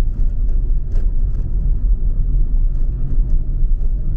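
Steady low rumble of a car driving at road speed, heard from inside the cabin: engine and tyre noise on tarmac.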